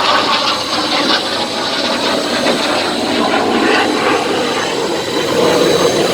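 Loud, steady jet noise from an AIDC F-CK-1 Ching-kuo (IDF) fighter's twin afterburning turbofan engines during a display flight.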